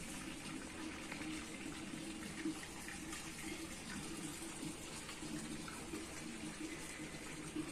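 Steady rush of running water, like a tap left running, with no separate knocks or splashes.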